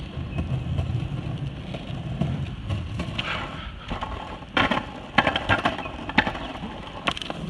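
Skateboard wheels rolling on pavement with a steady low rumble, broken by several sharp clacks in the second half.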